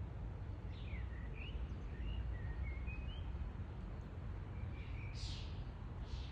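Small birds chirping, a run of short rising and falling notes in the first half, over a steady low rumble. Two brief hissy sounds come near the end.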